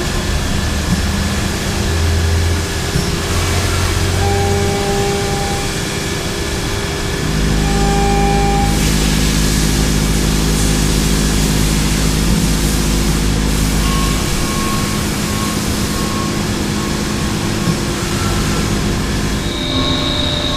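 Five-axis CNC machining center cutting a metal part under flood coolant. It is a steady machine hum made of several tones that change pitch about 7 seconds in and again about 14 seconds in, over a constant hiss that grows brighter for a few seconds around the middle.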